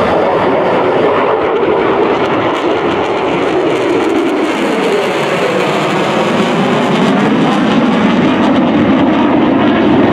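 Lockheed Martin F-22 Raptor's twin F119 jet engines, a loud steady rush as the fighter manoeuvres overhead. A phasing sweep in the noise falls in pitch through the first half and rises again in the second.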